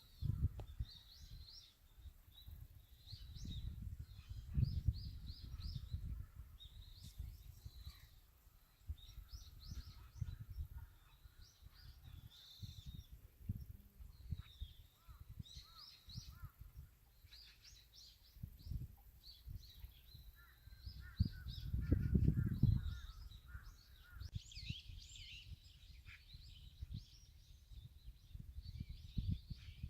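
Several small birds chirping and trilling in short, repeated calls. Bursts of low rumble come and go beneath them, loudest about two-thirds of the way through.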